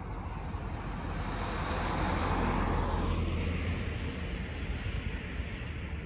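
A car passing on the road, its noise swelling to a peak about two to three seconds in and then fading, over a steady low rumble.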